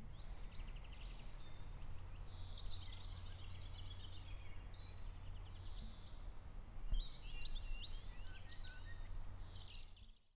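Outdoor birdsong ambience: many small birds chirping and trilling over a steady low rumble, with a short low thud about seven seconds in.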